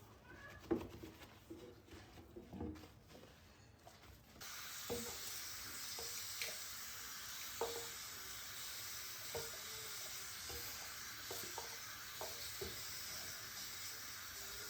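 Food sizzling in a frying pan, starting suddenly about four seconds in as a steady hiss, with a utensil knocking and stirring in the pan every second or so. Before it, only a few light kitchen knocks.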